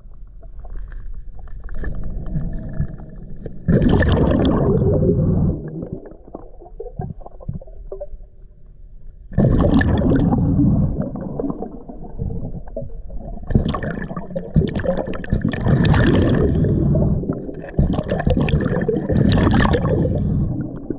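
A diver breathing through a scuba regulator underwater: gurgling surges of exhaled bubbles lasting a second or more, with quieter gaps between breaths and the surges coming almost without a break over the second half.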